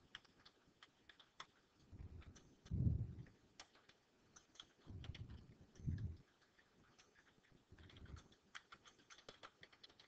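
Quiet typing on a computer keyboard, a scatter of light keystrokes as a sentence is typed out, with a few soft low thuds in between.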